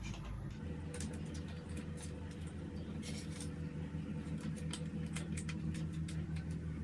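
Scattered clicks and light rattles of a ring-light tripod stand's parts being handled and screwed together, over a steady low hum that starts about half a second in and stops near the end.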